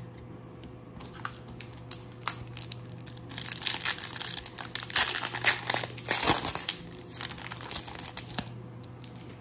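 Foil wrapper of a baseball-card pack crinkling as it is torn open: a few scattered crackles at first, then dense crinkling for about five seconds before it stops.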